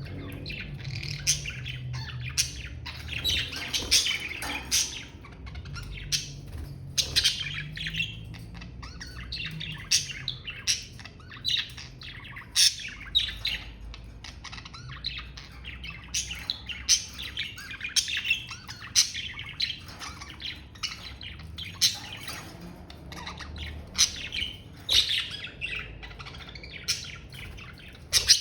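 Budgerigars chirping and chattering in a continuous, irregular run of short high calls, with occasional sharper squawks standing out above the warble.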